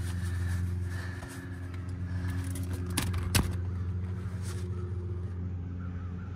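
A steady low hum from a running motor or engine, with two sharp clicks about three seconds in.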